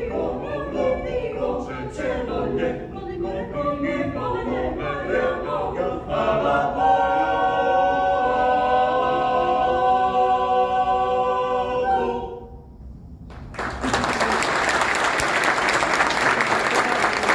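Mixed choir singing a cappella in a choral arrangement of Bosnian Krajina folk songs: a quick-moving passage that settles about six seconds in onto a long held final chord, which cuts off about twelve seconds in. After a short pause the audience breaks into applause.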